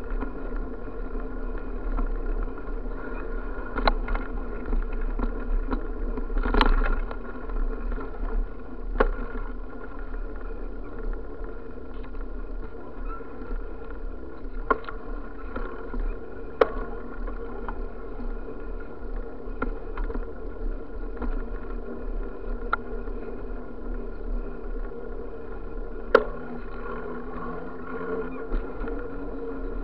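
Steady rolling rumble and rattle of a bicycle riding along a concrete sidewalk. Sharp clicks and knocks come every few seconds as it jolts over the slabs.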